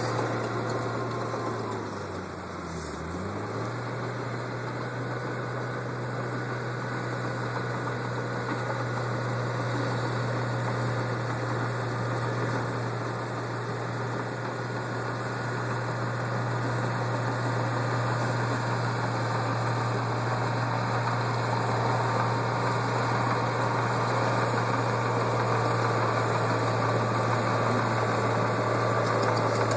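Heavy vehicle's diesel engine running steadily with a low hum, dipping briefly in pitch about two to three seconds in.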